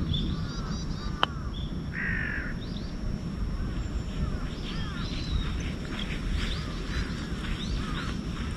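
Birds calling repeatedly in short chirping notes, with one harsher call about two seconds in, over a steady low rumble. A single sharp click sounds about a second in.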